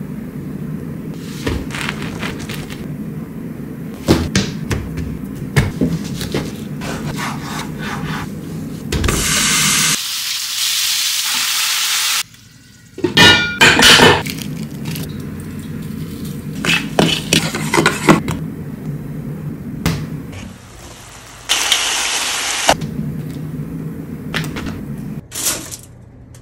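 A run of cooking sounds in quick succession: knocks and scrapes of food and utensils, two stretches of loud sizzling hiss, and about 13 seconds in, cubes of cheese dropping into a stainless steel bowl with sharp ringing clinks.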